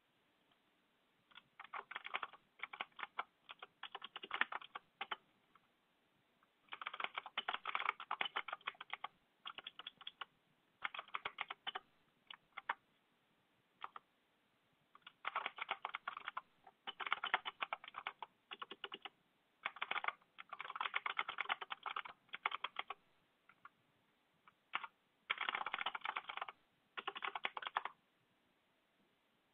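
Typing on a computer keyboard: quick runs of keystrokes lasting a second or two, broken by short pauses, with a few single key presses in between.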